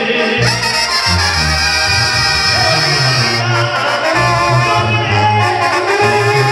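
Mexican banda playing live: trumpets and trombones over a tuba bass line.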